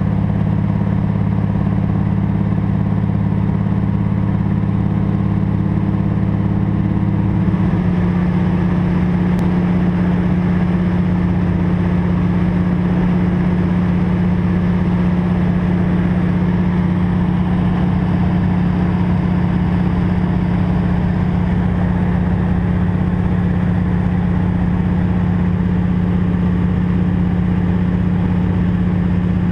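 De Havilland Canada DHC-2 Beaver's Pratt & Whitney R-985 nine-cylinder radial engine and propeller droning steadily in cruise flight, heard from inside the cockpit. The engine's tone shifts slightly about seven seconds in, then holds steady.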